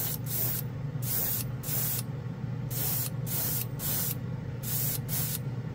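Gravity-feed airbrush spraying clear coat in about nine short bursts of hiss, each under half a second, as the trigger is pulsed in quick passes over a steady low hum.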